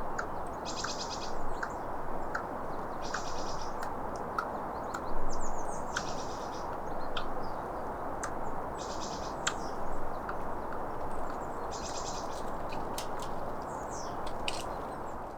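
Squirrel calling with rapid bursts of high clicks, each burst about half a second long and repeating every two and a half to three seconds, with single clicks in between, over a steady background hiss.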